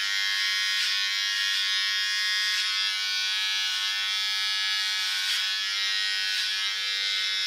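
Panasonic ER1411 electric hair clipper running with a steady buzz as it trims hair at the back of the neck.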